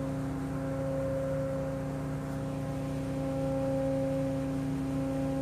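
The ship's diesel generators running, a steady machinery hum with several held tones.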